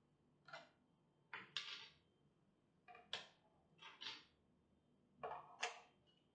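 Plastic digital kitchen scale being handled on a wooden tabletop: about five short knocks and scrapes as it is turned over, set down and fingered at its battery compartment.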